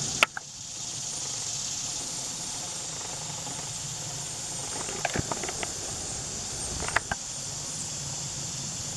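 Steady high-pitched outdoor hiss, with a sharp click just after the start and a few light clicks about five and seven seconds in.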